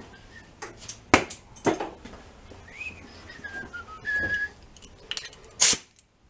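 Air hose quick-connect coupler being fitted onto a pneumatic die grinder's inlet: a couple of sharp clicks, then near the end a short, sharp hiss of air as the coupling snaps on. Someone whistles a few short notes over it.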